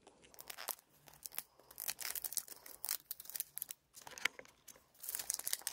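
Thin clear plastic wrap being torn and peeled off a plastic blind-box toy egg, with irregular crinkles and small crackling clicks.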